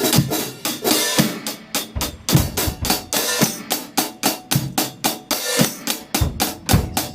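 Drum kit played in a groove: rapid, even hi-hat strokes with bass drum thumps and snare hits falling among them.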